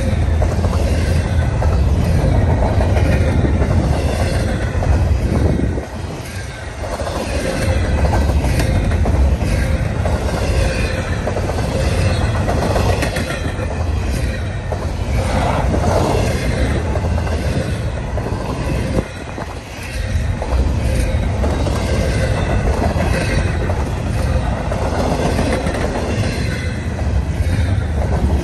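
Double-stack intermodal container well cars rolling past close by: a steady heavy rumble of wheels on rail with clicking from the wheelsets and a faint, thin squeal from the wheels. The rumble drops briefly twice, about a fifth and two-thirds of the way through.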